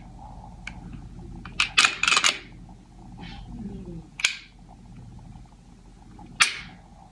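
Sharp metallic clicks and clacks of a Glock pistol being handled and dry-fired with its stock trigger parts: single clicks a second or two apart, with a quick cluster of clacks about two seconds in, as from the slide being racked.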